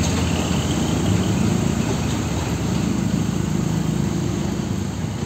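Heavy diesel trucks driving slowly past close by: a steady low engine drone with the rumble of the rigs.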